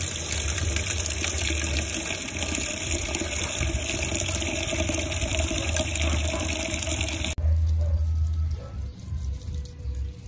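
Water from an outdoor tap pouring steadily into a metal kettle, filling it. The pouring cuts off abruptly about seven seconds in, leaving only a low rumble.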